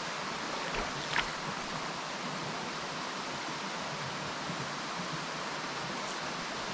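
Steady rushing hiss of a small forest stream flowing over rocks, with a faint click or two about a second in.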